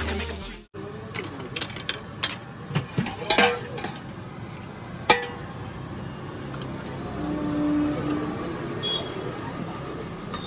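Background electronic music cuts off under a second in, then a steel ladle and utensils clink sharply against steel pots and bowls as soup is served, a dozen or so clinks, over a murmur of voices and street hum.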